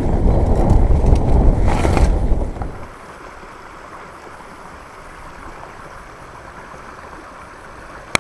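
Wind and tyre noise on an action camera's microphone while riding a mountain bike over a wet trail: loud rumbling for the first couple of seconds, then dropping off sharply to a quiet steady hiss. A single sharp click near the end.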